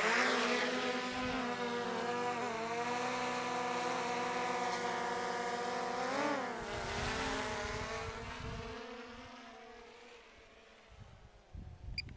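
Small camera drone's propellers whining with a steady, many-pitched hum. About six seconds in the pitch swells up and drops back, then the whine fades away over the following few seconds.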